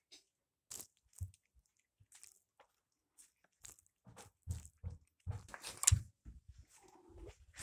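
A cat crunching dry kibble, with irregular sharp crunches. About five to six seconds in come louder knocks and a rattle as a doorknob is gripped and turned.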